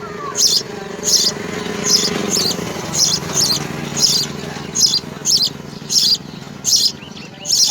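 House sparrows chirping in a steady series of short, high chirps, about three every two seconds, over a low background hum.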